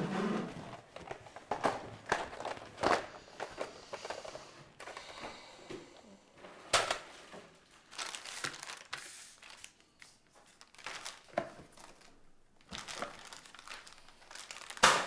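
Clear plastic packaging crinkling and rustling as a toy is unwrapped and handled, with a few sharp snaps of the plastic scattered through it.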